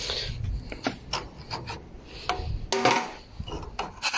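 Rubbing and scraping with scattered clicks and knocks, the loudest about three seconds in, as a hand takes hold of a rusty radiator cap.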